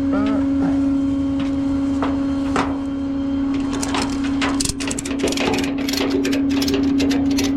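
Metal clicking and rattling as a tie-down is put on a towed car, over a steady hum. The clicks come thick and fast from about halfway through.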